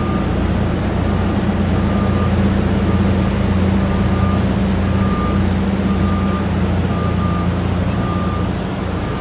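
Heavy engine running steadily, with a vehicle's backup alarm beeping about once a second.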